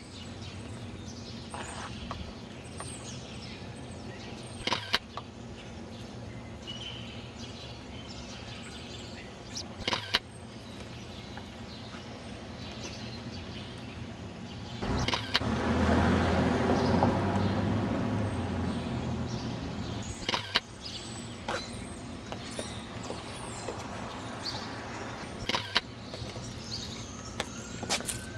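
Street ambience: a steady traffic hum with faint bird chirps. About halfway through, a vehicle passes, swelling up and fading over a few seconds. Sharp clicks come roughly every five seconds.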